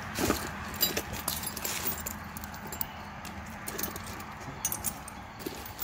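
Loose bolts and nuts clinking and rattling as a hand rummages through a soft-sided tool bag, searching for a bolt that fits. A string of light, irregular metal clicks.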